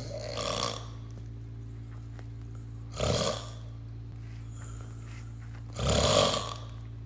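A drunk man snoring heavily, one loud rasping snore about every three seconds: three in all, the first weaker and the last the loudest.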